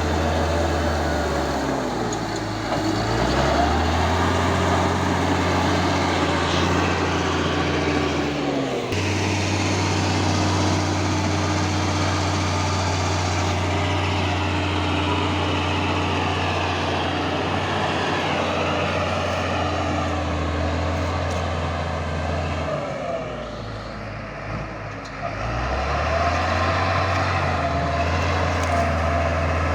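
Caterpillar D6G bulldozer's diesel engine running steadily with a deep hum. The hum dips and picks up again twice, and there is a sudden change in the sound about nine seconds in.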